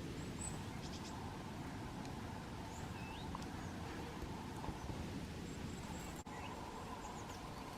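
Faint, short high calls and chirps of small birds at a winter feeder, a few scattered notes over a steady low background hum, with a brief dropout about six seconds in.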